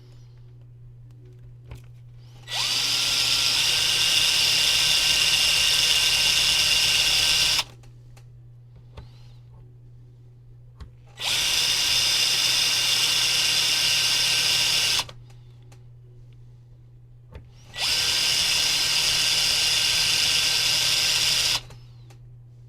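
Small electric drill running in three bursts of about four to five seconds each, with a brief rising whine as it spins up the first time.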